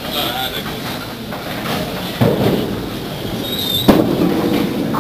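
Candlepin bowling alley sound: balls rolling down wooden lanes and pins clattering. There is a heavy crash about two seconds in, and the loudest sharp knock comes about four seconds in, as a ball is delivered onto the lane.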